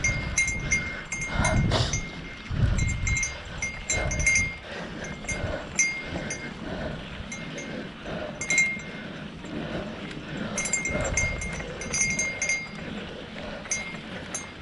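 A small metal bell jingling in irregular bursts, with light metallic clinks and a low rumble now and then.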